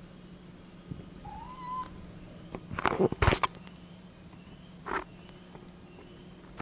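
A cat gives a short rising meow, then loud brushing and bumping noises sound right at the microphone, with a smaller one a couple of seconds later.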